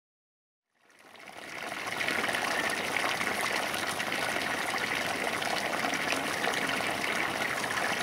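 Water rushing steadily along a small irrigation ditch beside flooded rice paddies, fading in from silence over the first two seconds, with frogs calling underneath the water noise.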